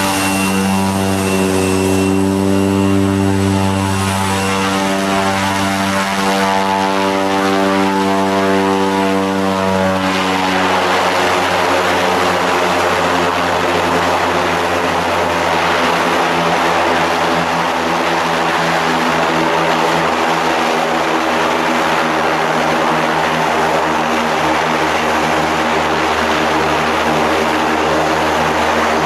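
Pilatus Porter turboprop running on the ground, a steady propeller drone with a faint high turbine whine at first. About ten seconds in the power comes up as the plane swings round, and the sound turns rougher and hissier.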